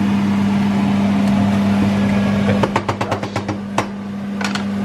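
Beef mince sizzling in a frying pan over a steady low hum. About two and a half seconds in comes a quick run of clicks and scrapes as a wooden spatula stirs the pan, and a few more come near the end.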